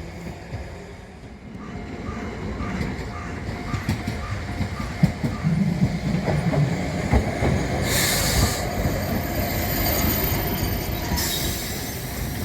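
Kagoshima City tram rolling through the crossing with a low rumble and wheel noise. A faint crossing bell rings about three times a second in the first few seconds, and two bursts of hiss come near the middle and near the end.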